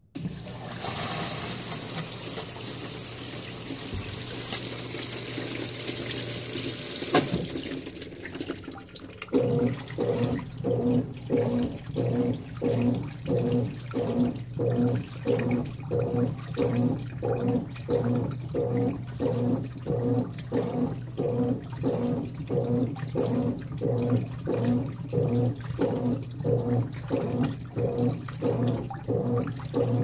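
Consul 16 kg top-loading washing machine: water pours into the tub as a loud hiss for about seven seconds and stops with a click. A couple of seconds later the wash motor starts agitating the load of bed linens in a steady rhythm, about two strokes a second, each stroke a motor hum with a slosh of water.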